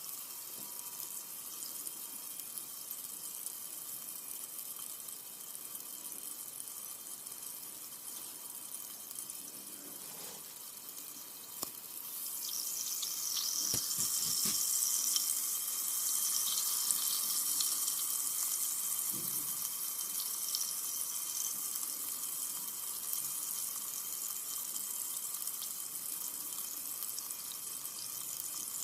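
Carbonated soda fizzing, a steady hiss of bursting bubbles with a fine crackle. About twelve seconds in the fizz grows louder and brighter, then stays there.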